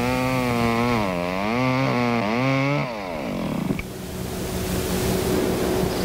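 Chainsaw engine revving up and down several times, then shut off about three seconds in and winding down. A steady hiss with a faint hum follows.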